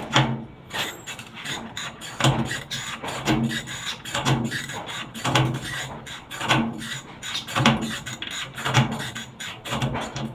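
Rhythmic rasping strokes, about one a second, from hand work on a washing machine's metal body.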